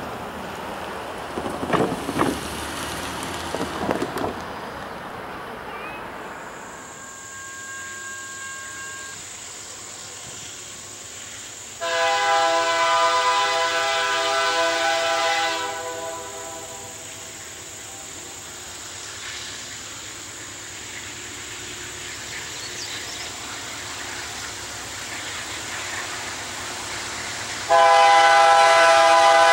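Diesel freight locomotive's air horn blowing two long blasts. The first comes about twelve seconds in and lasts some three and a half seconds; the second, louder, starts near the end and is still sounding.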